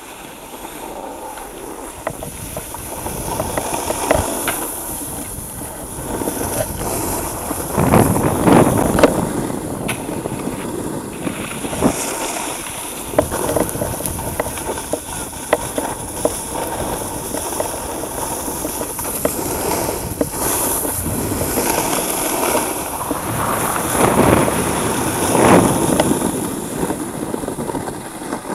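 Hiss and scrape of riding down a groomed snow slope, with wind buffeting the microphone. The scraping swells louder about eight seconds in and again about twenty-four seconds in.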